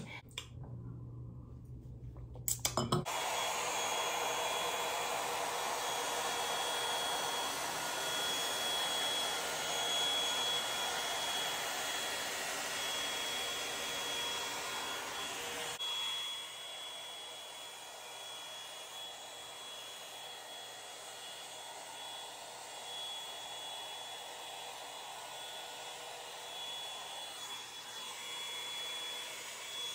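Revlon One-Step hair dryer brush running: a steady rush of air with a thin high whine. It starts after a couple of clicks about three seconds in and drops to a quieter level about halfway through.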